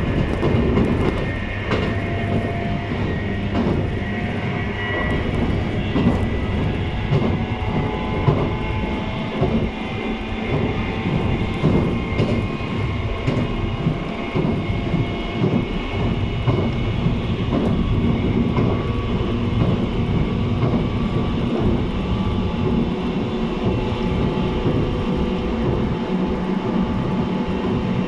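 JR East 719 series electric train running at speed, heard from inside the car: a steady rumble of wheels on rail with scattered clicks and several steady whining tones. This unit is known for an unusual running noise.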